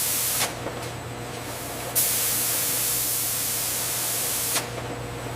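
Stainless steel vacuum marinating machine running with a steady low hum, with loud hissing in two long stretches: one at the start, the other from about two seconds in to near the end.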